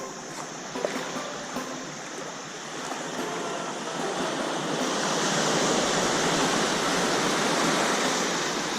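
Water rushing, like surf washing up on a beach: a steady wash that swells from about three seconds in and is loudest in the second half before easing near the end.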